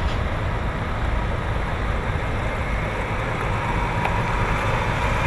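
Diesel engine of a Volvo concrete mixer truck running steadily as the truck drives slowly.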